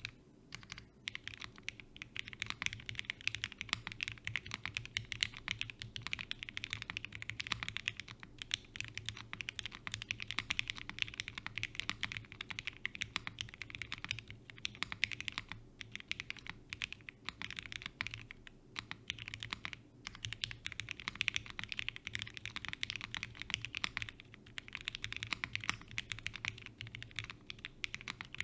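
Continuous fast typing on an M.One Ginkgo 65 custom mechanical keyboard with lubed Gateron CJ linear switches in an aluminium plate, PBT keycaps and foam-dampened case. The rapid keystrokes come in runs with brief pauses every few seconds.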